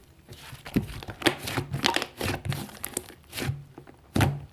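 Irregular crinkling and crackling with sharp clicks, a few every second, as of something being handled or crumpled.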